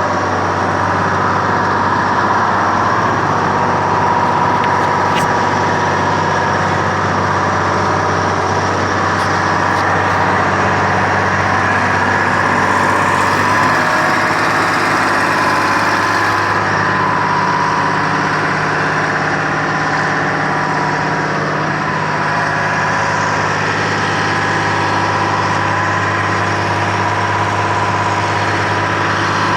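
Engine of a Texoma 900 drill rig running steadily with a steady whine above it; its note shifts about halfway through.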